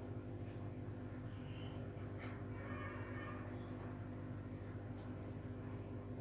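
Pencil scratching on drawing paper in a few short, faint strokes about two to three seconds in, with a light tick about five seconds in, over a steady low hum.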